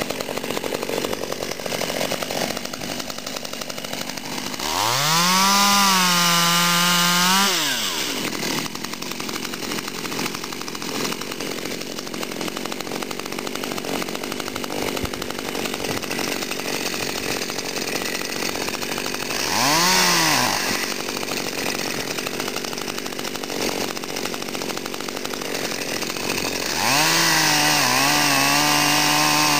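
Petrol chainsaw idling, then revving to full throttle as it cuts through a branch: a long cut about five seconds in, a short blip of the throttle near the twenty-second mark, and another cut starting near the end. It falls back to idle between them.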